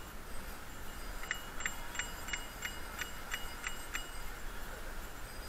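Bicycle bell rung about eight times in quick succession, roughly three dings a second, over a steady low rumble.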